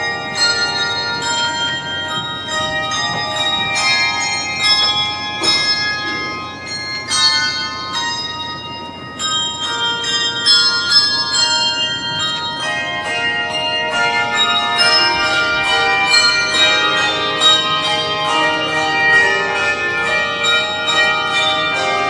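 Handbell choir playing a piece: many handbells rung together in chords that change about every second or so, the notes ringing on over one another.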